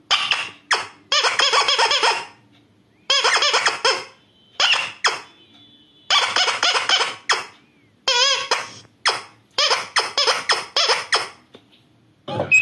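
A recorded baby-laughter sound effect played through a speaker: high, giggling laughs in several runs separated by short pauses.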